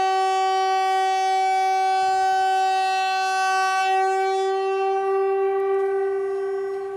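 An emergency alert alarm tone: one long, steady, buzzy tone held at a single pitch, fading near the end.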